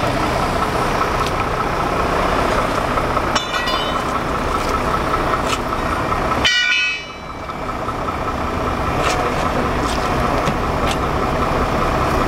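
Vehicle engine running steadily, with two short high-pitched tones about three and a half and six and a half seconds in; after the second the low drone briefly drops away and then returns.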